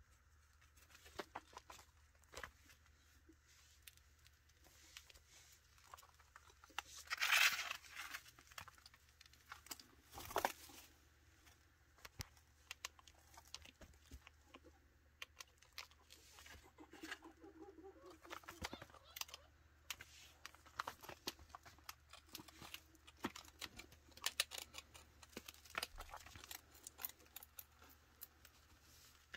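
Chinchilla gnawing and nibbling a seed treat stick: scattered small crunching clicks, with louder rustles about seven and ten seconds in.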